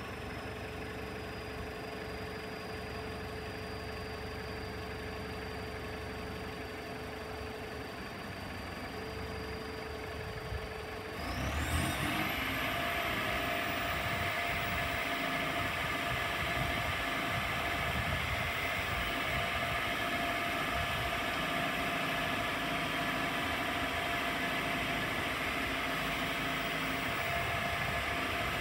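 Sandvik DT820 twin-boom drilling jumbo running steadily. About eleven seconds in the sound steps up louder, with a high whine gliding up in pitch, and it keeps running at the higher level while the hydraulic booms are repositioned.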